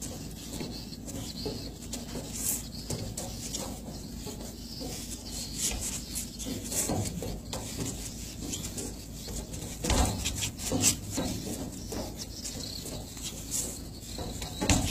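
Footfalls and scuffs of footwork on a ship's deck, over a steady low hum and a high hiss. A few louder thumps come about ten seconds in and again near the end.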